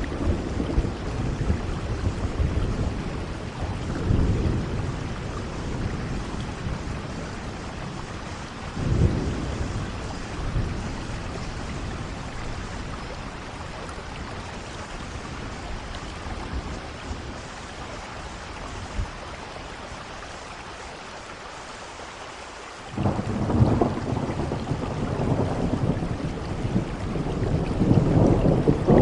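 Steady rain with rolls of thunder. There are low rumbles about four and nine seconds in, then a quieter lull. Near the end thunder breaks in suddenly and grows louder.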